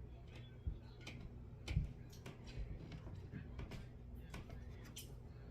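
Scattered light clicks and taps with a couple of soft thumps, from hands working close to the microphone, over a steady low hum.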